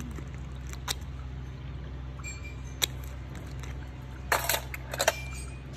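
A steady low hum runs under a few sharp clicks and taps of pedicure tools being handled, with the loudest cluster about four to five seconds in.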